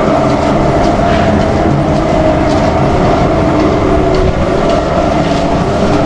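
Drive machinery of a river-crossing cable chair lift running, a loud steady mechanical drone holding one constant pitch.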